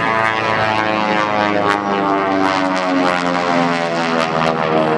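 Beech 18's twin Pratt & Whitney R-985 radial engines and propellers droning under power in a steep climb. Their pitch slides slowly lower.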